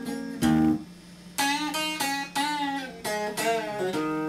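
Electric guitar playing a slow blues lick: single picked notes and short chords, several of them bent up and let back down, over a steady low amplifier hum.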